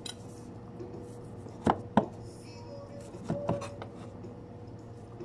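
Kitchen knife cutting through maki sushi rolls onto a cutting board: two sharp knocks about two seconds in, then a softer few a little later. A faint steady hum runs underneath.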